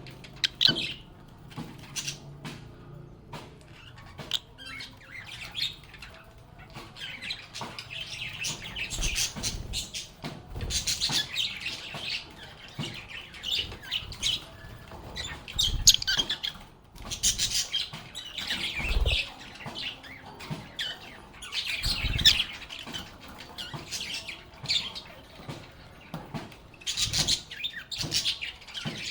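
A group of lovebirds chattering, with a steady stream of rapid, high, overlapping chirps and squeaks. A few brief thumps come through now and then.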